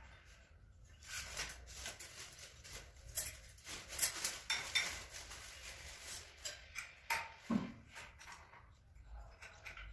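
Irregular metallic clinks and rattles as the putty mixer's steel paddle rod and small fittings are handled and fitted by hand, with some plastic packaging crinkling; the densest clatter comes about four seconds in.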